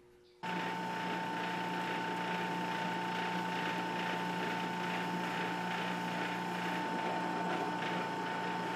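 Benchtop drill press motor running steadily, with a constant high-pitched whine over a low hum, while the bit is fed down to drill the weapon shaft hole through the robot's clamped frame pieces. It starts abruptly about half a second in.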